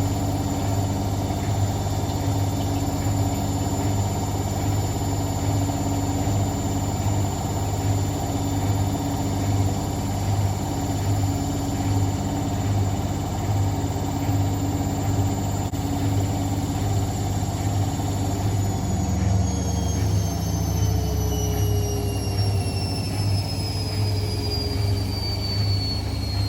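Hotpoint WML540 washing machine spinning at speed: a steady hum with a high-pitched motor whine. About three-quarters of the way through, the whine falls steadily in pitch as the motor winds down.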